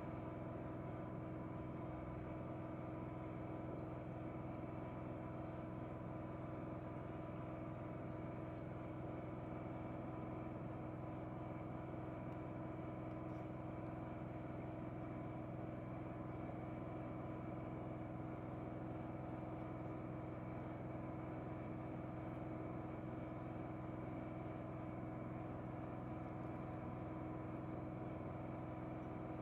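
Steady mechanical hum made up of several constant tones over a low hiss, with no change in pitch or level.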